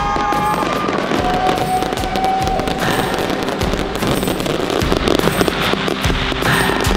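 Fireworks going off continuously: a dense run of bangs and crackling as shells launch and burst.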